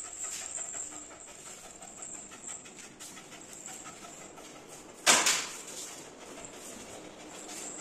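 A small white spitz-type dog panting rapidly. A single sudden, loud sound cuts in about five seconds in and dies away within half a second.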